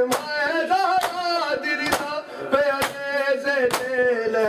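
Matam: a group of men strike their bare chests with their palms in unison, a sharp slap about every second, five times. A man's voice chants a noha lament over them in time with the beats.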